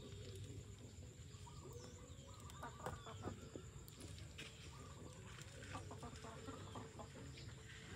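Chickens clucking, with light clicks and taps about three seconds in and again near six as the bamboo skewers of eels are shifted on the grill rack over the charcoal.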